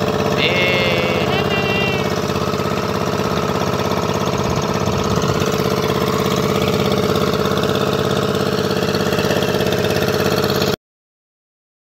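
Outrigger fishing boat's engine running steadily at a constant speed. The sound cuts off abruptly near the end.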